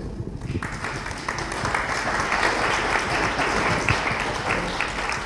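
Audience applauding: many hands clapping, starting about half a second in and going on steadily.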